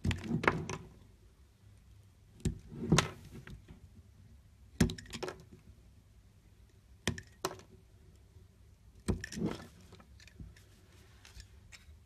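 Utility-knife blade cutting into a bar of soap, each stroke a short crisp crackling run as a slice breaks away. Five strokes, roughly two seconds apart.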